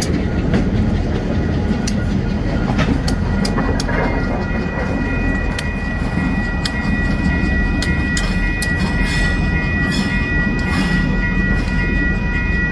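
Union Pacific diesel-electric locomotives rumbling at low speed, wheels clicking and knocking over the rail joints. A thin, steady high tone rings over the engine sound from about four seconds in.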